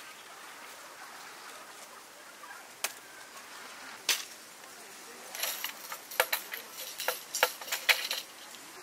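Camping gear handled on a folding table: two single sharp clicks, then a quick run of clicks and metallic clinks in the second half, over a steady outdoor hiss.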